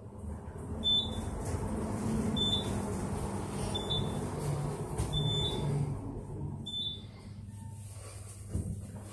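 ThyssenKrupp elevator car descending, its floor-passing tone giving five short high beeps about one and a half seconds apart over the low hum and rumble of the moving car.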